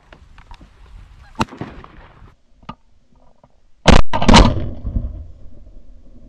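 Two shotgun blasts about half a second apart, about four seconds in, fired at Canada geese passing overhead, each report rolling away afterwards.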